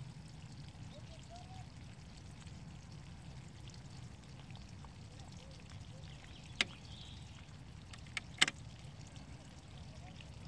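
Faint, steady low hum with a few sharp clicks in the second half: the fiber holders and clamps of a Fujikura fusion splicer being pressed and snapped shut as the fiber is loaded.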